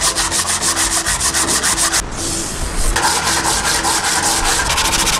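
Sandpaper on a hand-held sanding block rubbed quickly back and forth over the old wooden boards of a bread cutter, in fast, even scratchy strokes. The strokes pause and change briefly about two seconds in, then carry on with a slightly different tone.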